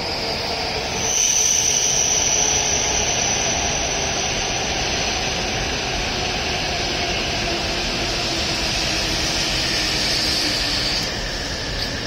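W7 series Shinkansen train running into the platform and slowing. A steady rush of running noise carries a high hiss that stops about eleven seconds in, and a tone falls slowly in pitch as the train slows.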